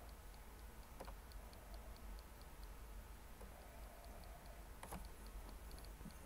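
Faint, steady ticking at about four ticks a second over a low hum, with a light click about a second in and a sharper click near the end.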